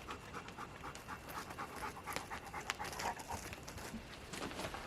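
Dog panting rapidly, several quick breaths a second, after a run through the wet woods.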